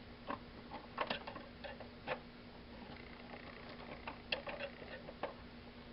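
Light clicks and scrapes of a small screwdriver working at rusty, corroded lamp-socket hardware, a few scattered ticks about a second apart. A faint steady hum runs underneath.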